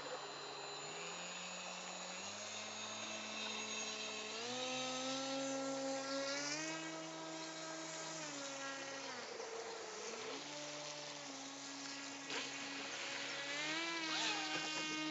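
Electric motor of a radio-controlled model boat whining. Its pitch holds, then steps up and down as the throttle changes, dipping low about two-thirds of the way through and climbing again near the end.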